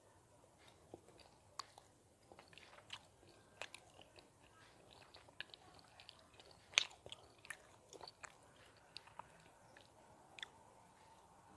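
Close-miked mouth eating sounds: wet clicks and smacks of lips and tongue while chewing, in short, irregular snaps. A sharper, louder click comes about seven seconds in.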